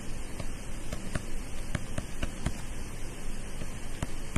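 Stylus tapping and scratching on a tablet screen during handwriting: a scatter of short sharp clicks over a steady microphone hiss.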